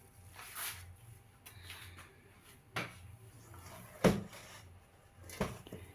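Soft bread dough being folded over and pressed down by hand: three knocks about a second and a half apart, the middle one the loudest.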